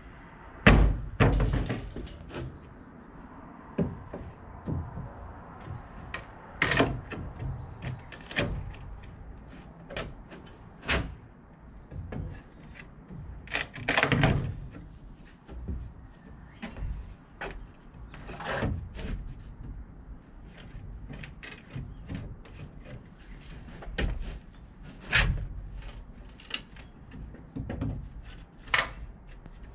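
Irregular knocks and thuds of wood being struck and pried with a steel pry bar during manual demolition of a timber structure, a couple of dozen blows spread unevenly, the loudest about a second in and near the middle.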